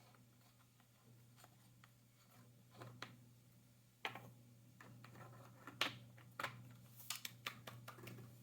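Jigsaw puzzle pieces being handled and fitted together on a table: faint light clicks and taps, a few at first and a busier run of sharper taps in the second half.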